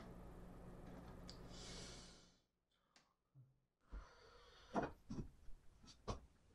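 Quiet hand sounds: a soft hiss about a second and a half in, then after a brief silence, a pencil working on a sketchbook page with a few light taps.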